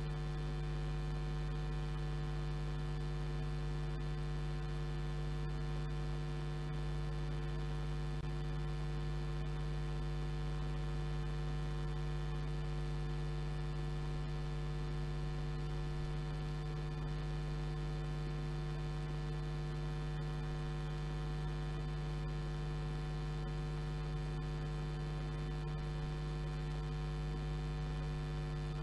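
Steady electrical mains hum with a buzzy stack of many overtones, unchanging in level and pitch.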